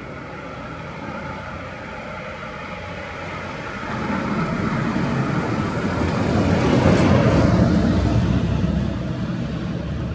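A vehicle passing by: a rumble that builds about four seconds in, is loudest around seven to eight seconds, and fades near the end, over a steady background hum.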